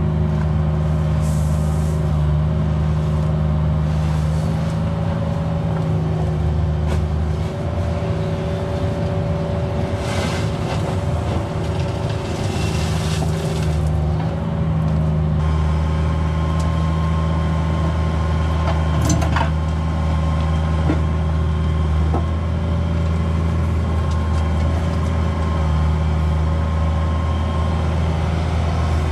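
Cat 304 mini excavator's diesel engine running steadily while it digs, with bursts of hiss and scraping around ten to fourteen seconds in. A steady higher tone joins about halfway through, and there is one sharp click a little later.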